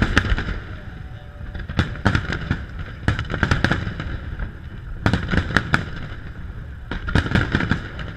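Aerial display fireworks bursting in volleys: clusters of several sharp bangs come about every one and a half to two seconds.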